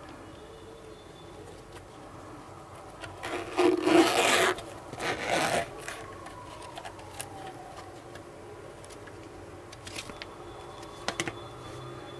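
Zipper on a nylon hard-shell sunglasses case being pulled open in two strokes, the first longer and louder, about a second and a half, the second under a second. A few light clicks follow near the end as the case is handled and opened.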